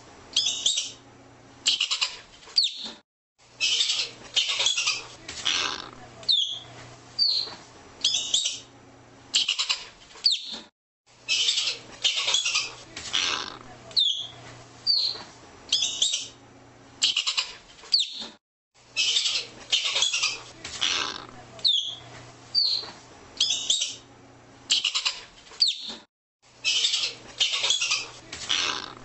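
Arctic ground squirrel calling: short, high chirps alternating with groups of three or four harsh, rapid chattering bursts. The sequence repeats every seven or eight seconds.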